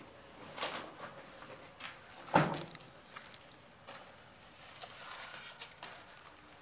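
Scattered short knocks and rustles, with one sharp knock about two and a half seconds in.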